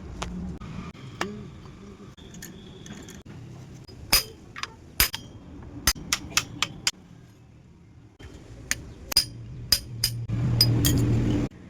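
Sharp clinks and taps of hand tools on metal parts, about fifteen, spaced irregularly. Near the end a steady low hum sounds for about a second and a half, then cuts off.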